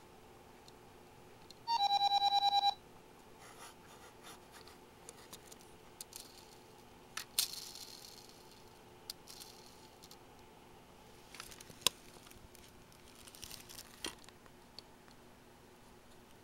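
A quick run of electronic beeps lasting about a second, near the start. Then scattered faint clicks and rattles as small plastic and metal parts of a Mini 4WD chassis are handled and its suspension is pressed.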